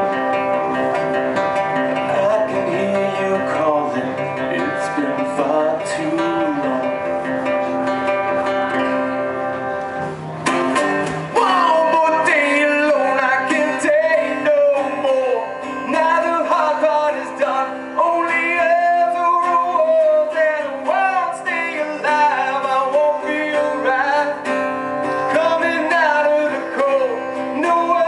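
Live acoustic guitar played by a solo performer, with a man's singing voice coming in about eleven seconds in and carrying on over the guitar.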